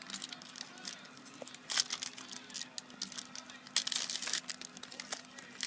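Trading card pack packaging crinkling and tearing as it is opened by hand, in short rustling bursts, the clearest about two seconds in and around four seconds in.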